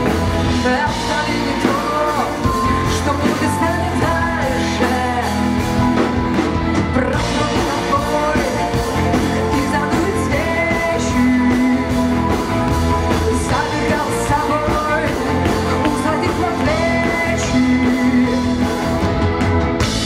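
Live rock band playing a song: a woman singing lead over electric guitar, bass guitar, drum kit and keyboards.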